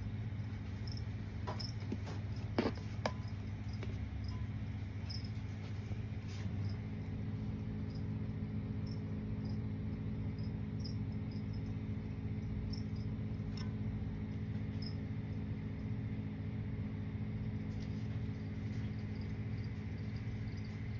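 Short high chirps repeating about once or twice a second over a steady low hum, with a few sharp clicks about two to three seconds in.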